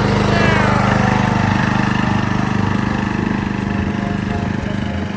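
Small petrol engine, like a mower's, running steadily at a constant speed, easing slightly in level toward the end.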